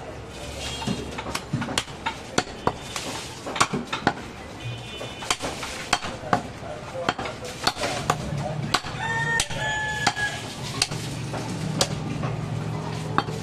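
Heavy butcher's knife chopping goat meat and bone on a wooden tree-stump block: repeated sharp chops at an irregular pace of about two a second. A longer pitched call sounds about nine seconds in.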